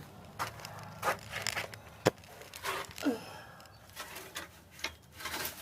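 Scattered clicks, knocks and rustles of yard debris being picked up and handled, with a sharp click about two seconds in. A short breath or grunt comes about three seconds in.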